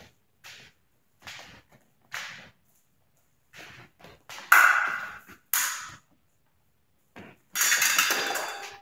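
Épée fencers' footwork on the strip: a run of short stamps and shuffles, two of them louder in the middle. Near the end the blades clash and scrape together, and the electric scoring box begins a steady tone as a touch registers.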